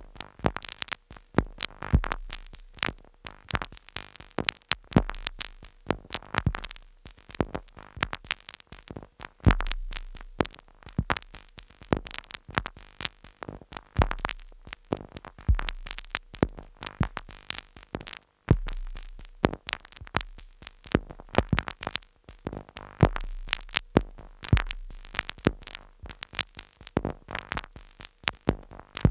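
Two Behringer Neutron analogue synthesizers sequenced by a Korg SQ-10, playing an irregular pattern of sharp glitchy clicks and noise hits over low bass tones that come and go every few seconds.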